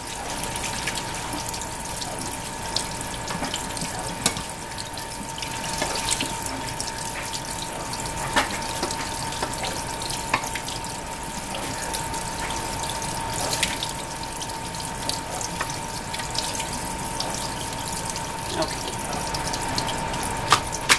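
Cold tap water running steadily onto ramen noodles in a stainless steel colander in the sink, with a few light knocks as the noodles are stirred.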